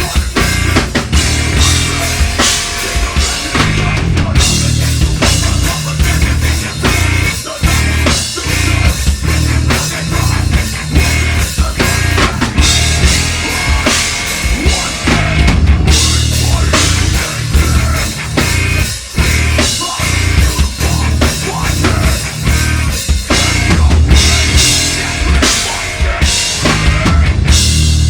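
Live heavy metal band playing loud: pounding drum kit with kick drum and snare, distorted guitars and bass.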